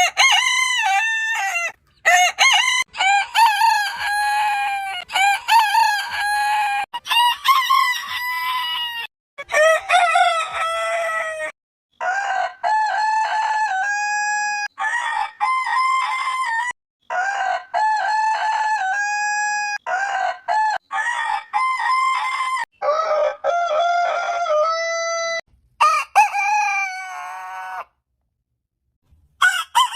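Roosters crowing, one crow after another in a spliced compilation, each call a long pitched cry broken off by abrupt cuts to silence.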